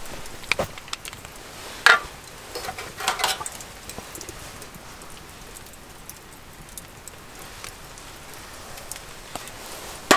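Seasoning shaker being handled and shaken over a metal bowl: a couple of clicks, then a short burst of rattling about three seconds in, over a faint steady hiss.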